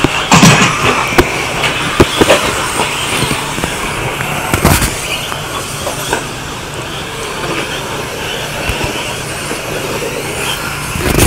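Radio-controlled 2WD stadium trucks racing on a dirt track, their motors whining steadily, with a few sharp knocks through the first five seconds and a loud low thump at the very end.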